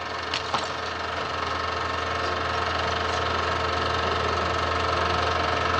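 A small machine running with a steady mechanical whirr, with two short clicks about half a second in.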